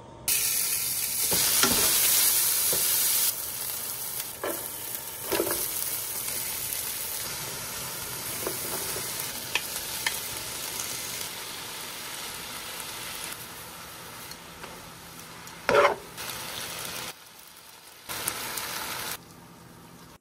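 Chicken and vegetables sizzling in a frying pan as they are stirred, a steady frying hiss whose loudness jumps up and down abruptly several times. A few short scrapes of a utensil in the pan cut through, the loudest about sixteen seconds in.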